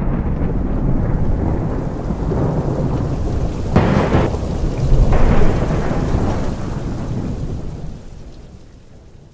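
Rumbling thunder over steady rain, swelling to two louder peaks about four and five seconds in, then fading away.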